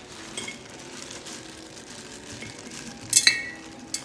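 Lemon slices being put into a jar by hand: soft wet handling noise with light clinks, and a sharper ringing clink about three seconds in.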